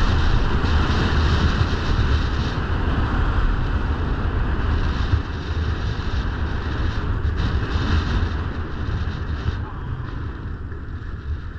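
Wind rushing over the microphone with skis hissing over groomed snow during a steady downhill run. The rush eases a little near the end.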